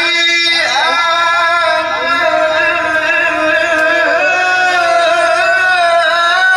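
A man reciting the Quran in the melodic tajweed style, heard through a microphone and loudspeakers. He draws out one long phrase of held, gently wavering notes that turn slowly in pitch, without a pause.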